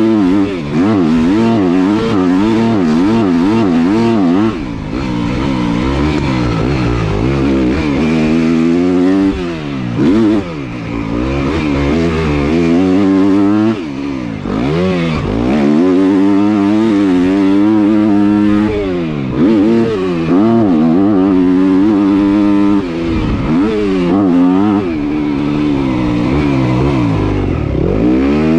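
250 cc motocross bike engine heard from on the bike while it is ridden on a dirt track, revving up and falling back again and again as the throttle is opened and shut, with a few brief drops in level.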